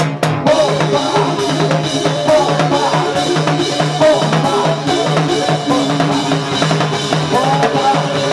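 Live band of clarinet, violin, acoustic guitar and drum kit with hand drums playing an instrumental passage, the drums prominent on a steady beat.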